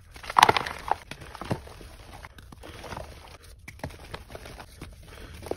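Soft reformed chalk crumbling in a hand: two sharp crunches as the block breaks in the first second and a half, then softer powdery crumbling and pressing.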